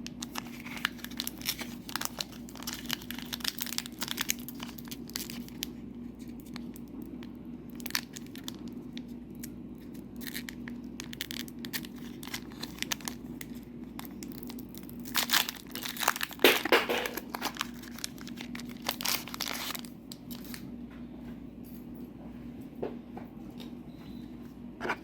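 Trading-card booster pack being opened: the wrapper crinkling and tearing in irregular crackles, loudest about two-thirds of the way in.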